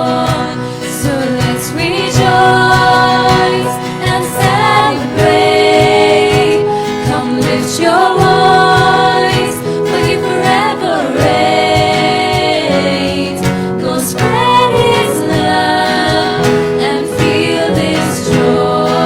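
Live worship music: a choir singing a Christmas worship song with instrumental accompaniment, in long held notes.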